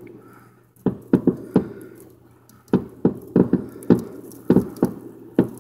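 Fireworks shells bursting in a rapid, irregular string of about a dozen sharp bangs, each with a short echoing tail and a brief lull about two seconds in: the grand finale of the display.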